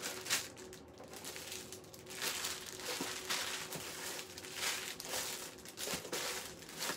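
Rummaging through a box of jewelry: a run of irregular crinkling rustles as rings are searched for and handled.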